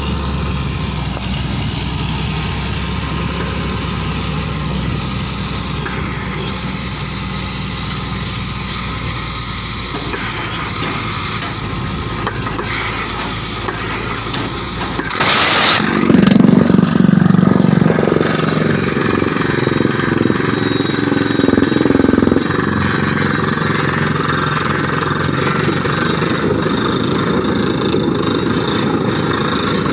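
Truck-mounted hydraulic borewell drilling rig running steadily. About halfway through comes a sudden short loud rush of noise, and the machine runs louder and unevenly for several seconds before settling back to a steady run.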